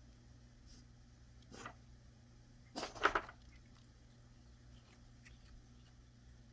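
A short fit of coughing: two or three quick coughs in a row about three seconds in, after a fainter short sound about a second before, in a small room.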